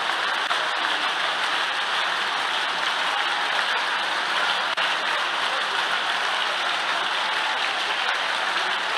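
Congregation applauding steadily, a continuous patter of many hands clapping.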